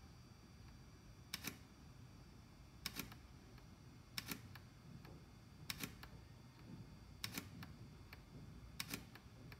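ADTi Surveyor Lite mapping camera's shutter firing six times, about every second and a half, each shot a quick double click, as the camera is triggered remotely from the RC transmitter.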